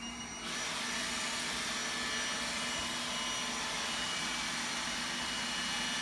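Roomba 980 robot vacuum's fan motor spinning up and running steadily as the robot is sent back to its dock; the sound steps up to full strength about half a second in and then holds a steady whine over a low hum.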